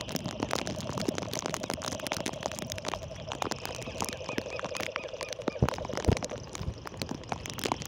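A frog calling in a fast, pulsing trill that stops about six and a half seconds in, over steady rain with many small clicks. There are two louder knocks near the end.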